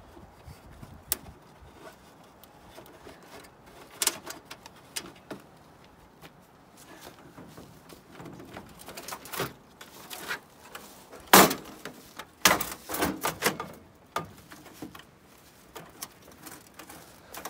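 Scattered clanks and knocks of a dryer's sheet-steel front panel being worked loose and turned around by hand. The loudest clatter comes about eleven to fourteen seconds in.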